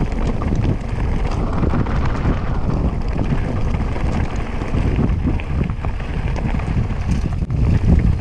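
Wind buffeting the microphone: a loud, steady rumbling rush.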